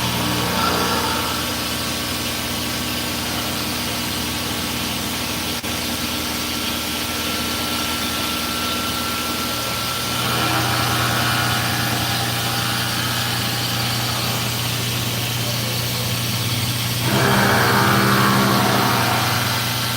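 CNC machine running with a steady hum and several fixed tones; the sound steps up about ten seconds in and grows louder near the end, as the machine's working sound changes.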